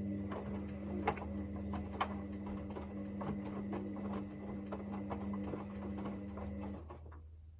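Hoover VisionDynamic washing machine's drum motor running with a steady hum as it turns the drum on a synthetics 40 °C wash, with scattered clicks and knocks from the load in the drum. The motor hum cuts off about seven seconds in.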